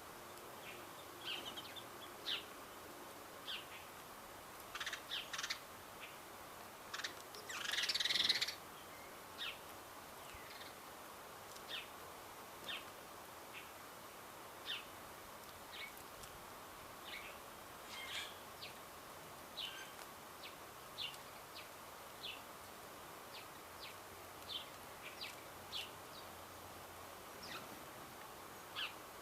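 Garden birds chirping: short high notes roughly once a second, with one louder, longer burst about eight seconds in.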